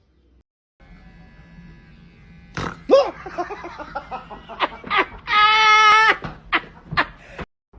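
A person's frightened squealing cries, with one long high-pitched scream lasting about a second halfway through, then more short cries.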